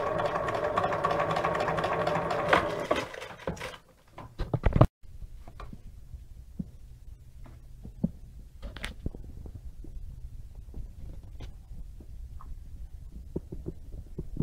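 Bernina electric sewing machine running at speed, its needle punching unthreaded through several layers of natural leather, then slowing and stopping about three to four seconds in. A few sharp knocks follow, then a faint low hum with scattered clicks of handling.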